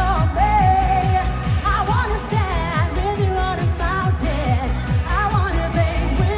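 Live dance-pop music over a concert PA: a steady kick drum about twice a second under a wavering melody line.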